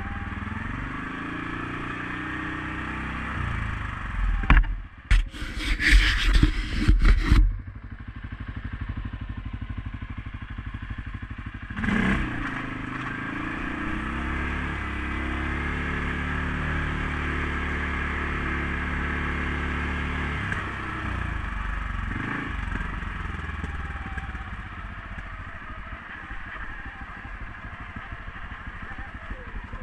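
CFMOTO CForce 500S ATV's single-cylinder engine running on a trail ride, its revs rising and falling. From about four to seven seconds in comes a run of loud knocks and clatter, with another knock at about twelve seconds.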